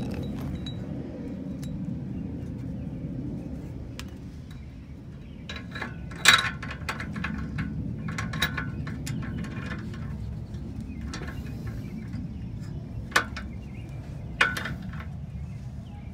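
Ratchet clicking and metal tools clinking as a new downstream O2 sensor is run into the exhaust pipe with a deep socket, over a steady low background rumble. A run of small clicks starts about five seconds in, with sharper clinks about six, thirteen and fourteen seconds in.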